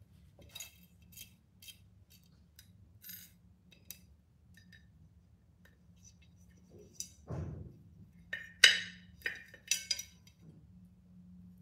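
Tempered glass pot lid with a metal rim being handled while its knob hardware is fitted: a run of light clinks and taps, a soft thump, then a louder cluster of clinks about three-quarters of the way in.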